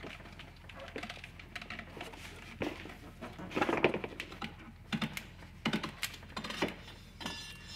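Irregular clicks, taps and rubbing as a rubber CVT drive belt is worked by hand off the side of a golf cart's metal rear clutch pulley.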